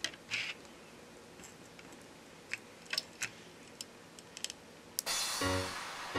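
Light clicks and ticks of small phone parts being handled and fitted into a Samsung Galaxy A32's frame. Background music starts suddenly about five seconds in and is the loudest sound.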